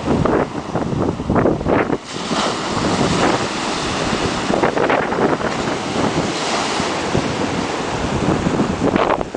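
North Sea waves breaking and washing over a seafront promenade's concrete edge, a continuous rushing surf, with wind buffeting the microphone.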